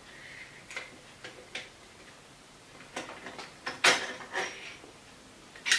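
Irregular hard plastic clicks and light taps as an electric scooter's throttle unit and handlebar fittings are handled and fitted, the loudest about four seconds in.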